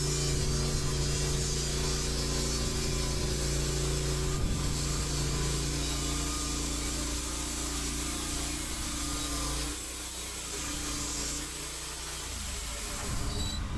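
Gas engine of a TimberKing portable band sawmill running steadily under load as the blade cuts through a pine log. The engine note drops and the sound thins about ten seconds in.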